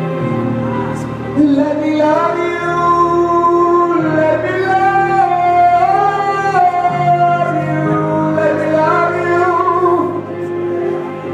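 Gospel worship music: a sustained keyboard pad with a singer holding long, sliding melodic lines over it.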